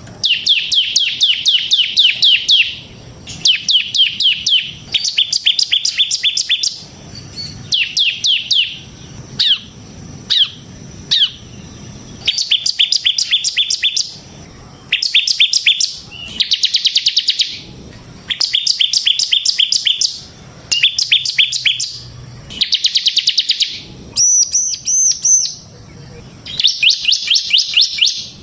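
Bar-winged prinia (ciblek) singing in full voice: phrases of rapid, sharp high chirps lasting a second or two, separated by short pauses. A couple of buzzy notes and a higher ringing phrase near the end are mixed in.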